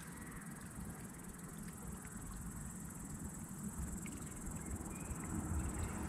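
Steady high-pitched chirring of crickets over a low rumble that grows slightly louder toward the end.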